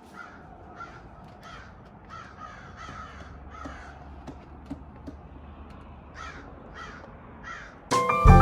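Crows cawing again and again, a long run of short separate calls over a faint steady outdoor rumble. Music starts near the end.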